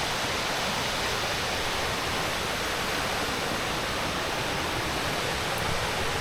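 The Shaki Waterfall's falling water heard from close by, a loud, steady rush of noise.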